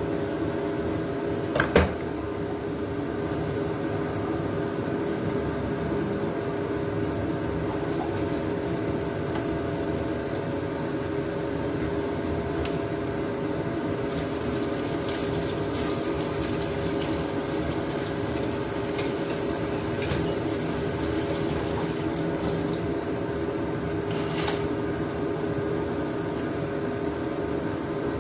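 Steady machine hum with a few constant tones, as from a running kitchen appliance or fan. A single knock sounds about two seconds in, and a soft hiss comes and goes in the middle.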